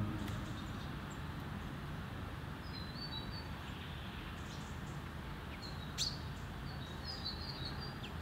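Steady low outdoor background noise with a small songbird giving faint short high chirps in two brief runs, about three seconds in and again near seven seconds. A single sharp click about six seconds in.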